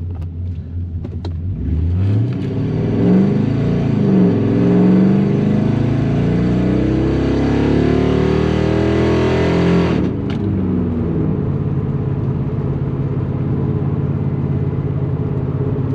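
The car's LS-swapped 5.3 L Vortec V8 launches under full throttle for a 0 to 60 run, its revs climbing and dropping as it shifts up through the gears. About ten seconds in the throttle is lifted, and the engine settles into a steady lower drone.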